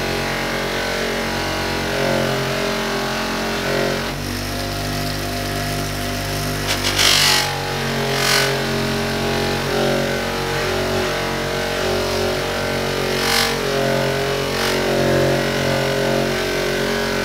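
Electric bench polisher running steadily, a steel hammer head held against its spinning sisal buffing wheel loaded with black polishing compound. A few short hissing rasps come when the metal is pressed harder into the wheel, the loudest about halfway through.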